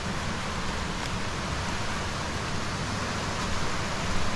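Running water rushing steadily, an even hiss with no distinct splashes or knocks.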